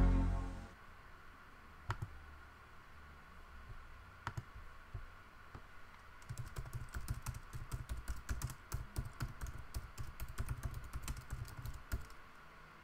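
Typing on a computer keyboard: two separate clicks, then a fast run of keystrokes for about six seconds, ending with a single last keystroke. At the very start, the tail of a sustained musical tone dies away.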